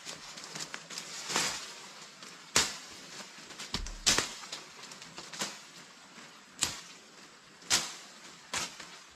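A string of sharp knocks and taps at uneven spacing, roughly one every second, over a faint steady hiss.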